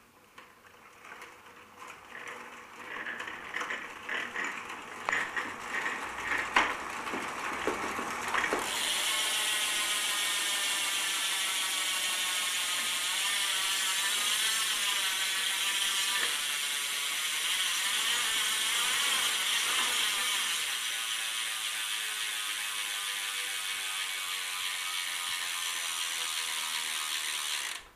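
Sun Ringle Radium MA rear hub's freehub ratcheting, very loud. Irregular clicks come first, then a continuous buzz starts abruptly as the wheel spins freely, its pitch slowly falling as the wheel slows. It drops a little about three-quarters through and cuts off suddenly near the end.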